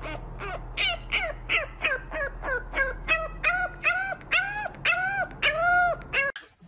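French bulldog puppy giving a quick run of short, high yips, about four a second, each rising and falling in pitch. The later calls grow longer and more drawn out, like little howls, and the calling stops abruptly near the end.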